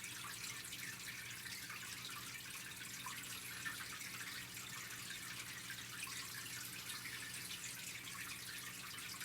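Steady low background hiss with a faint electrical hum underneath; no distinct sound events.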